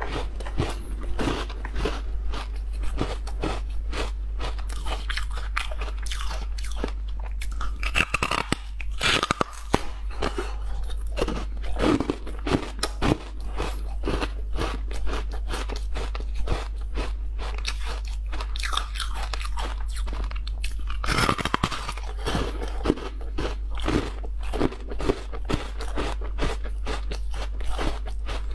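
Crunching and chewing of flower-shaped pieces of coloured ice, close to a lapel microphone: a steady run of small crunches as the ice is chewed, with louder bites cracking the ice about eight seconds in and again about twenty-one seconds in.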